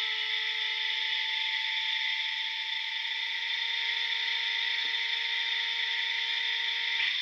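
Sound decoder of an HO-scale BB67000 model locomotive playing its diesel engine sound through the model's tiny speaker: a steady hiss with a thin, even hum and no deep bass. The hum cuts off about seven seconds in.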